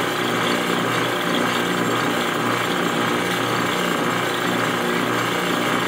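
Vacuum investing table running with a steady mechanical hum and buzz, drawing the air out of liquid plaster investment in a flask under a bell jar.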